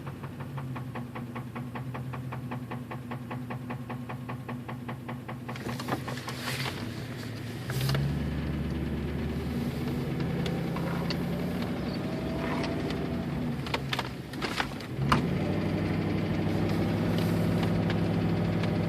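1999 Ford Crown Victoria Police Interceptor's 4.6-litre V8 running with a rapid, even tapping, then revved up twice and held at higher rpm. The knocking/tapping noise came on with the engine oil low and is most prominent at high rpm.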